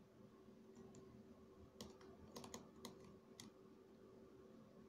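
Faint small clicks and taps, about six in quick succession near the middle, as a desoldering pump's nozzle and a soldering iron tip work against the solder pins of a mouse circuit board, over a faint steady hum.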